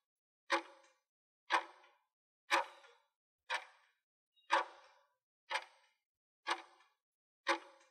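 Clock-tick sound effect of a quiz countdown timer, ticking once a second, eight ticks in all, each with a short fading tail.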